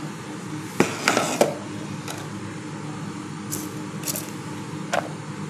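Plastic kitchenware handled on a countertop: a sharp click about a second in, then brief scraping and rustling, with a few faint ticks and another click near the end, over a low steady hum.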